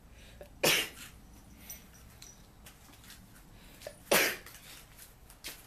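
A tabby cat sneezing twice, short sharp sneezes about three and a half seconds apart.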